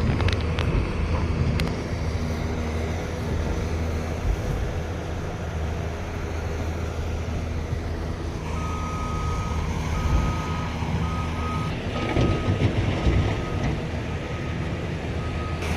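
Heavy diesel machinery running steadily with a low engine hum. About halfway through, a reversing alarm starts beeping repeatedly in short beeps and carries on to near the end.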